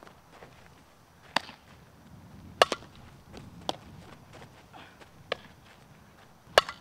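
Softball infield practice: sharp cracks and pops of the ball struck by a bat and smacking into leather gloves, about five sharp strikes a second or so apart, the loudest about two and a half seconds in and near the end.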